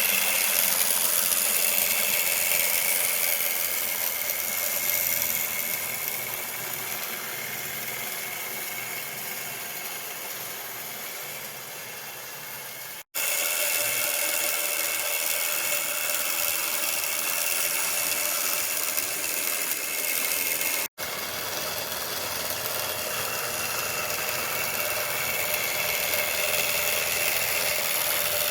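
HO-scale box cab model locomotive running under power: its small electric motor and large reduction gearing make a very loud, steady mechanical whine and gear noise, with no flywheel fitted. The sound grows fainter over the first dozen seconds, cuts out abruptly twice, and returns at full loudness.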